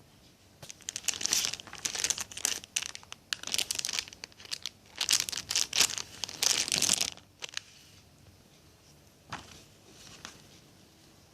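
Plastic wrapping crinkling and rustling in a dense run of bursts for about six seconds as it is handled, then two brief faint rustles near the end.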